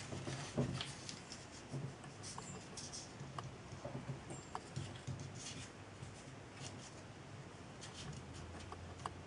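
Masking tape being wrapped around silicone boiler lagging and rubbed down by fingers: faint scratchy rustling with scattered light clicks and taps.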